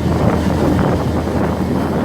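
Forklift engine running steadily under work with a snow-blade attachment, a continuous low drone.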